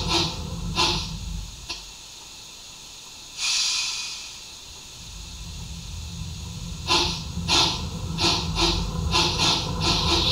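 Märklin gauge 1 G8.1 model steam locomotive's sound effects: exhaust chuffs die away about a second in, a short burst of steam hiss comes about three and a half seconds in, then the chuffs start again about seven seconds in and quicken. Under the chuffs runs the hum of the model's drive.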